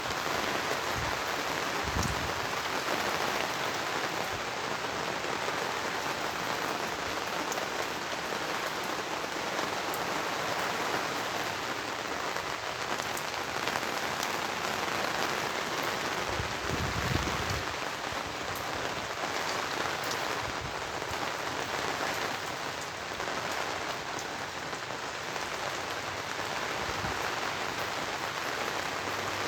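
Heavy rain falling steadily, with a brief low rumble a little past halfway.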